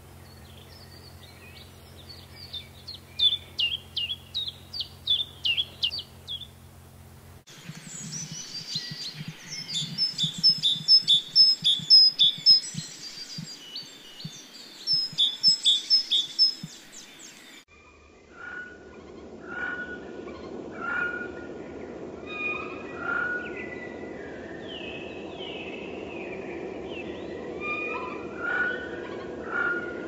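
A string of field recordings of European woodland birds. First a common chiffchaff sings its even series of short notes, about two a second. Then a great tit sings loud repeated two-note phrases in two runs, the loudest part. In the last third, a recording credited to a Eurasian jay plays short repeated calls over a steady low hum.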